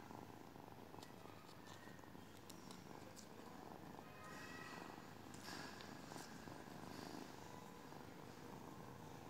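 Tabby cat purring close against the microphone: a faint, steady low rumble, with a few light scratchy clicks.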